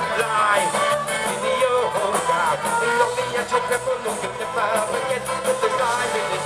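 Irish rock band playing live: a rock song with guitar and drums under a wavering lead melody line.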